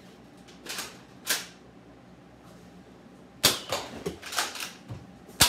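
Nerf blasters firing and foam darts clacking off hard surfaces: two softer bursts in the first second and a half, then a rapid flurry of sharp clicks and knocks from about three and a half seconds in, with the two loudest snaps close together near the end.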